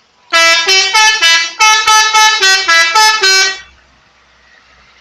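Bus "telolet" musical air horn playing a quick tune of about a dozen short notes that step up and down in pitch. It is loud and stops sharply about three and a half seconds in.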